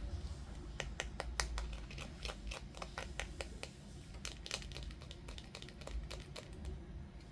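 Hands unboxing toys: plastic packaging crinkling, with many irregular clicks and taps.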